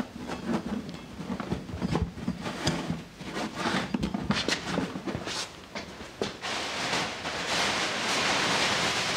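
Foam blocks being pushed and rubbed by hand through the filler opening of a plastic racing fuel cell: irregular scuffing, creaking and light knocks. About two-thirds of the way through, a louder, steady rustling hiss takes over.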